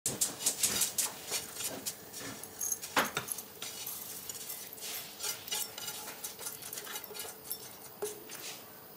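Roasted vermicelli being scraped out of a nonstick frying pan into a cut-glass bowl with a silicone spatula: a run of small clicks and taps as the spatula, pan and strands meet the glass, busiest in the first few seconds, with one sharper knock about three seconds in.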